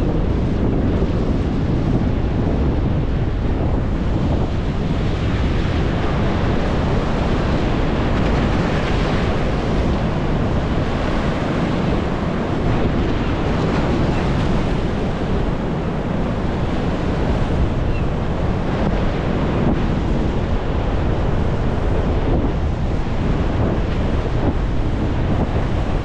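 Rough sea surf breaking and washing up a stepped concrete sea wall, with strong wind buffeting the microphone.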